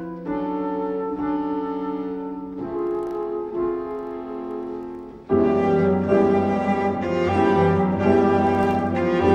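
Instrumental film score of bowed strings holding long, sustained notes that change every couple of seconds, swelling much louder and fuller about five seconds in.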